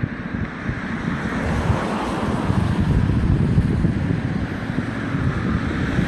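Wind buffeting a smartphone microphone: a loud, gusting rumble of noise, heaviest in the low end.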